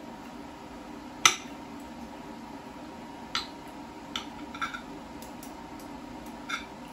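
Metal knife and fork clinking against a ceramic plate while cutting food: one sharp clink about a second in, then a handful of lighter clinks and taps. A steady low hum runs underneath.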